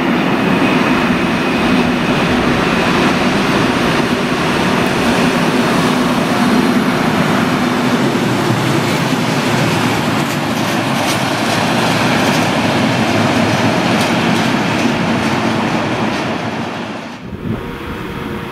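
Diesel locomotive running past at close range hauling tank wagons: a steady engine drone, with wagon wheels clicking over the rail joints as the wagons roll by. Near the end the sound drops abruptly to a much quieter background.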